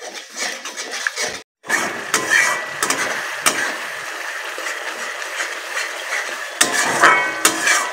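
Metal spatula scraping and clattering against a metal kadai while stirring a spiced yogurt masala, which sizzles in oil over a low flame. There is a short break about a second and a half in.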